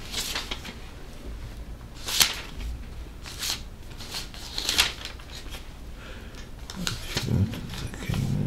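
Pages of a small paperback prayer book being leafed through: several short, soft paper rustles about a second apart.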